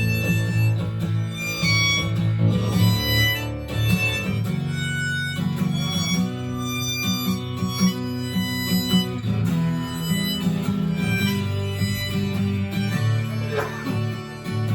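Instrumental break of a folk-style band song: a harmonica melody over strummed acoustic guitar and bass, with a short sliding tone near the end.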